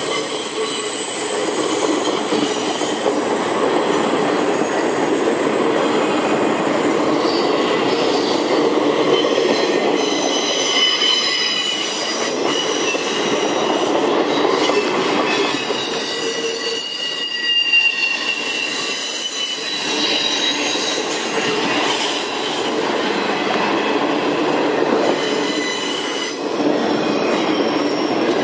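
Empty intermodal spine cars and flatcars of a freight train rolling past on steel wheels: a steady rumble and rattle of wheels on rail, with high-pitched wheel squeal coming and going.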